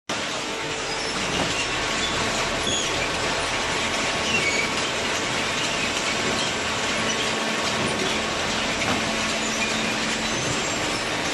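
Industrial machinery running steadily, a dense even noise with faint steady tones and scattered short high squeaks.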